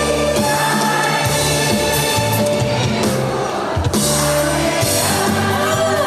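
A trot song playing loud: instrumental accompaniment with a woman singing.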